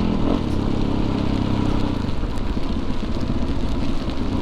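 Dual-sport dirt bike engine running while riding along. It holds a steady note for about two seconds, then turns more uneven.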